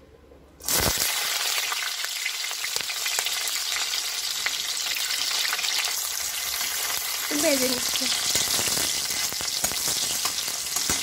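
Sliced onions hitting hot cooking oil in a metal karahi burst into a loud sizzle under a second in, then keep frying steadily. A metal spatula clicks and scrapes against the pan as they are stirred.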